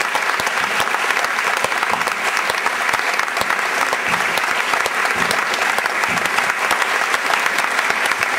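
A theatre audience applauding steadily, a dense patter of many hands clapping.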